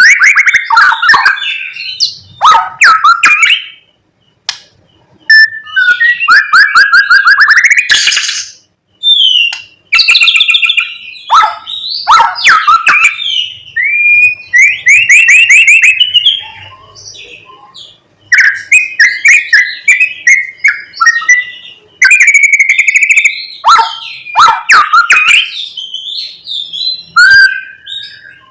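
White-rumped shama (murai batu) singing a loud, varied song of clear whistles, quick trills and rapid rising note series, broken by short pauses, a song full of mimicked notes of other birds.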